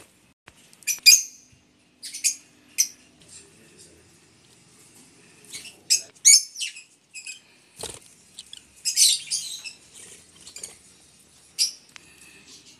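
Rosy-faced lovebirds calling: short, shrill, high-pitched chirps in bursts every second or so, with a denser, louder run of calls about nine seconds in.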